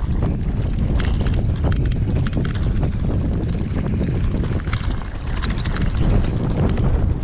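Wind buffeting the camera microphone as a mountain bike descends a rough, rocky trail. Irregular sharp clicks and rattles come from the bike and from stones under the tyres throughout.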